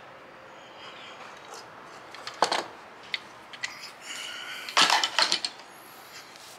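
Sharp clicks and light clatter of hard parts being handled at a zero-turn mower's engine: a short run of clicks about two and a half seconds in, a few single ticks, and the loudest clatter near five seconds.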